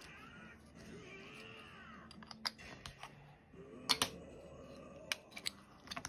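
Sharp plastic clicks and taps in small clusters as small ink pads and a sponge dauber are handled on a desk, the loudest about four seconds in. A faint background soundtrack with a voice now and then runs under them.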